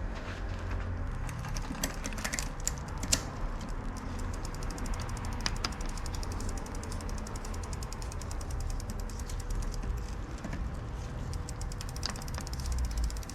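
Bicycle freewheel ticking rapidly as the rear wheel spins, with a few louder sharp clicks.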